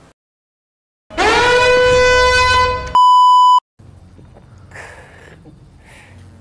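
A loud, steady high-pitched tone with a quick upward swoop at its start, held about two seconds, then a short censor bleep of about half a second that cuts off sharply. A few faint breathy puffs follow.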